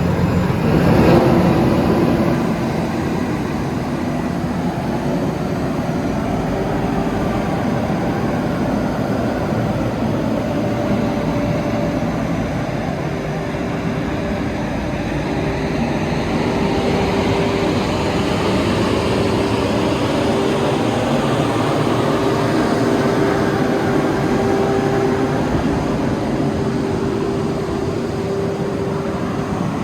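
Vögele Super 1803-3i asphalt paver's diesel engine running steadily, with a steady whine over it.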